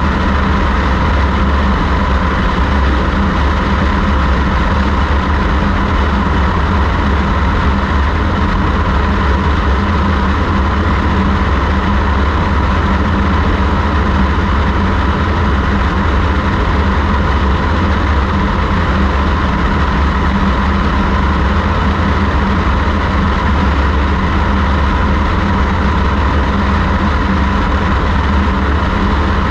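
Light aircraft's engine and propeller running steadily in cruise flight, with airflow rushing past the microphone mounted outside the plane. The drone holds an even pitch and level throughout.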